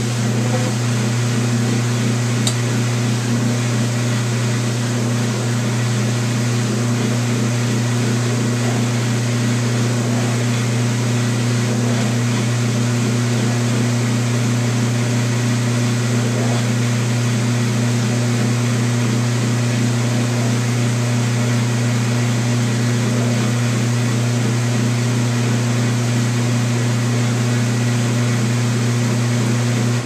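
Whirlpool Heavy Duty Super Capacity top-loading washing machine running: a steady, loud motor hum with a whirring wash noise over it, unchanging throughout.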